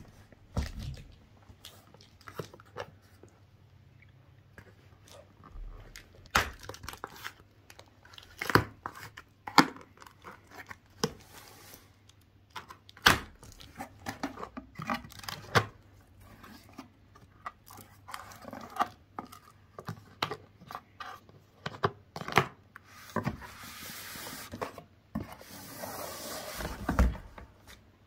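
Cardboard box and packaging being handled and opened by hand: a run of knocks, clicks and scrapes, with a longer stretch of tearing near the end.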